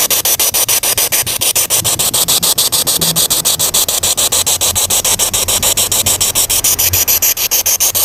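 Spirit box sweeping through radio stations: a steady hiss of white noise chopped about ten times a second by the rapid scan.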